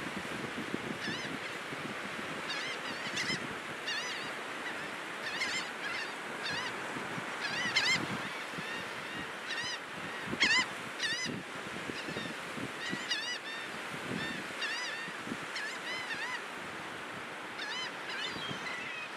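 Laughing gulls calling in short runs of repeated, arching notes over steady surf washing on the beach. The loudest calls come about eight and ten and a half seconds in.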